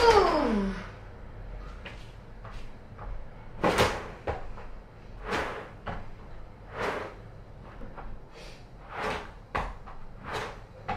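Soft thuds and scuffs from a rolled rug being laid out and kicked flat on a hard floor, with footsteps, coming about a second or more apart. It opens with a short, loud falling tone.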